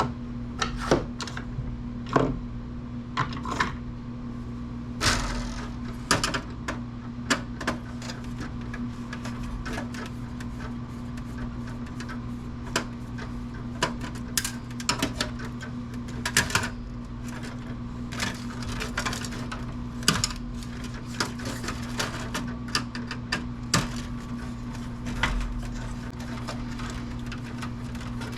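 Irregular clicks, taps and clatter of metal and plastic computer parts being handled and pried apart by hand, some in quick runs, over a steady low hum.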